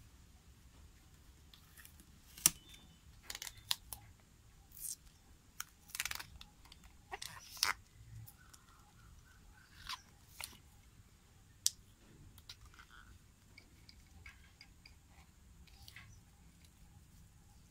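Irregular clicks, knocks and light scrapes of a metal tape measure and its homemade bolted-on steel attachment being handled and turned over in the hands. The sharpest click comes about two and a half seconds in, and another near the middle.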